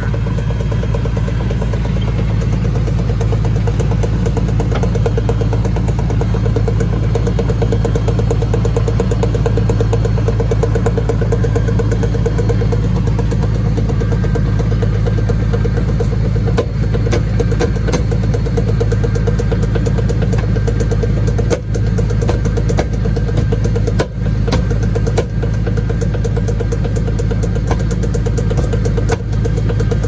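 2002 Chevy Silverado 1500's drivetrain running in gear with the truck up on stands and the driveshaft spinning: a loud, steady hum, with scattered clicks in the second half. The clicking is the noise the mechanic traces to a bad universal joint on the driveshaft.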